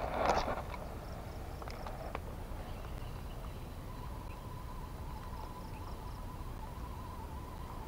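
A brief swish as a spinning rod casts a lure. Then quiet open-air background with a low rumble, and from about halfway a faint, steady, slightly wavering insect buzz.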